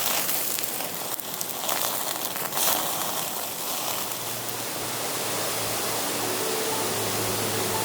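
Steady hissing and crackling of a wood campfire, with a few sharp pops in the first three seconds. A low hum of steady tones that shift in pitch comes in about four seconds in.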